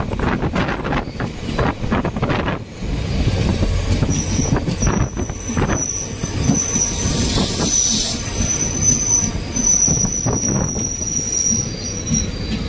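Passenger train running, heard from an open coach doorway: a low rumble of wheels on the rails with a few rail-joint clicks in the first seconds. About four seconds in, a high wheel squeal starts. It comes and goes, stopping near the end.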